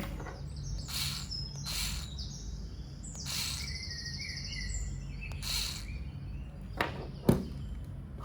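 Birds chirping in short high calls, over a low steady hum, with several brief hissing bursts and two sharp clicks near the end.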